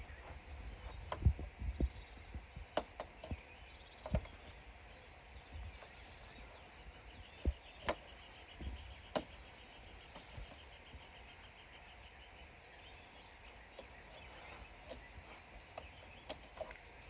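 Faint scattered knocks and clicks of hands and tools working, with a low rumble in the first two seconds and a brief run of rapid light ticking around the middle.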